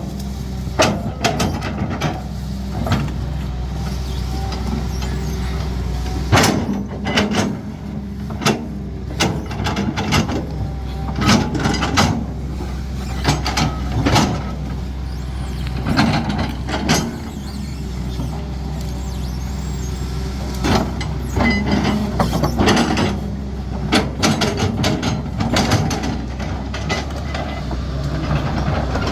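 Caterpillar 320D hydraulic excavator's diesel engine running steadily under work, with frequent irregular knocks and clanks.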